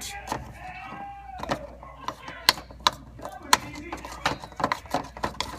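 Spoon stirring melted white chocolate in a bowl, clinking and scraping against the bowl in quick, irregular taps.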